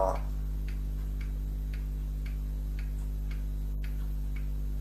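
Faint, regular ticking about twice a second, like a clock, over a steady low electrical hum.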